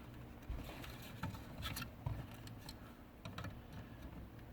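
Scattered faint clicks and taps of small plastic parts as the old passenger door control switch is worked at by hand to release its retaining tab.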